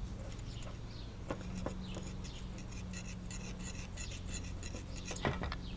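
Thin steel wire scraping and ticking faintly as it is run in and out of the small ports of a Subaru/Robin small-engine carburetor body, to clear passages clogged by old gasoline. A low steady hum lies underneath.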